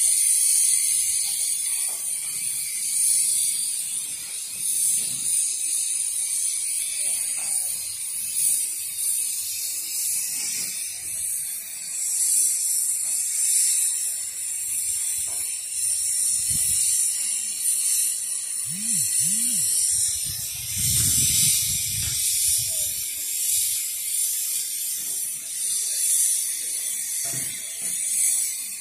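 A steady high-pitched hiss, swelling and fading every second or two, with a brief low rumble about twenty seconds in.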